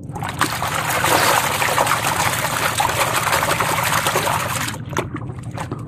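Muddy water splashing and sloshing as a hand swishes a plastic toy mask through it to wash off the mud. The splashing stops just before five seconds in, leaving a few small drips and splashes.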